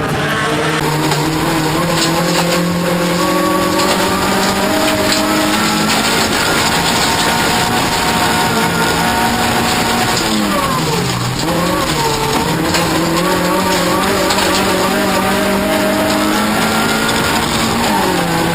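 Toyota Corolla offroad racing car's engine at full throttle. Its note climbs and drops back at each gear change, falls sharply about ten seconds in as the car slows, then pulls up again.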